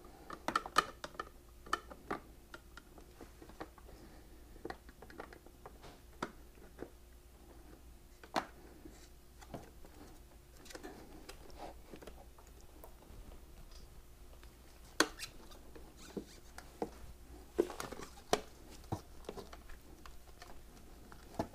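Faint scattered clicks, taps and rustles of nitrile-gloved hands fitting a chrome frame cover onto a motorcycle frame, with a faint steady hum underneath.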